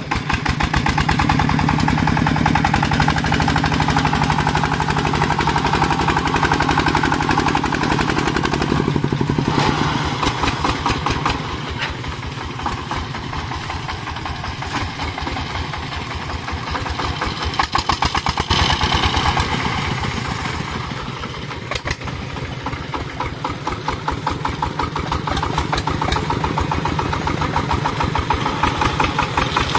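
Single-cylinder diesel engine of a công nông two-wheel tractor chugging with a rapid, regular thudding as it pulls a loaded firewood trailer. The running gets louder and quieter as the throttle changes, dipping in the middle and rising again later.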